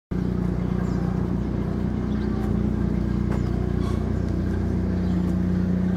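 A steady, low motor hum, like an engine idling, with a few faint ticks.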